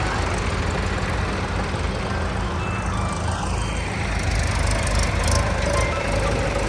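Diesel tractor engine running steadily with a low rumble.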